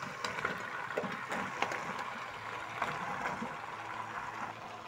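Beef-and-tomato sauce bubbling in a pot on the stove, with a few soft knocks as chunks of peeled green banana are dropped in by hand.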